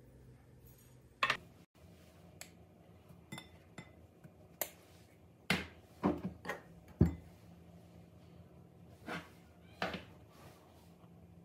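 Scattered knocks and clinks of a tin can, jars and a glass mixing bowl being handled and set down while dry ingredients are tipped into the bowl, about ten in all, the loudest about seven seconds in.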